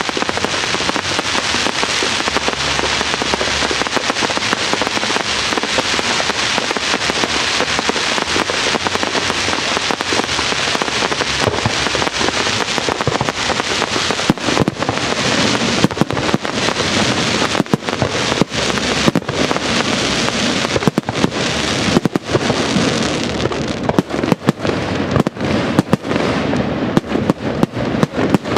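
Fireworks display going off densely: a continuous wash of crackling and popping, with more distinct sharp bangs breaking through from about halfway on.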